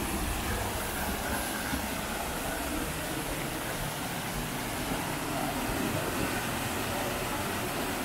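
Allerheiligen waterfall plunging over rock into a pool, a steady rush of falling water.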